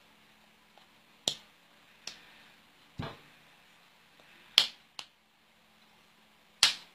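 Hands clapping and slapping together during sign language: six sharp slaps at uneven intervals, the loudest about four and a half seconds in and near the end, over a faint steady hum.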